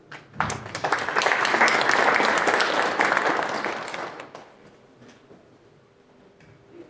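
Audience applauding for about four seconds, swelling quickly and then dying away.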